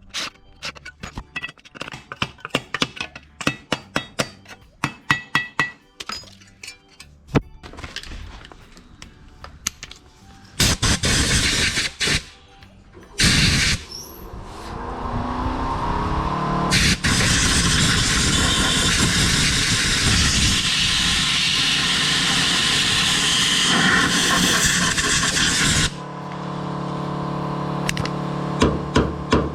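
Sheet-metal work on steel: a quick run of sharp taps and knocks, then a power tool running steadily for about ten seconds before stopping.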